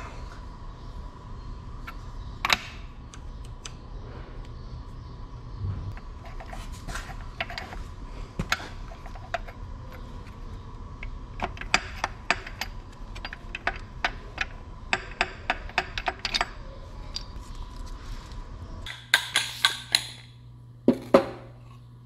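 Small metal clicks and clinks of hand tools and parts on a John Deere 4010 engine's crankshaft main bearing caps, coming irregularly over a steady low hum. Near the end, a few louder metal clinks.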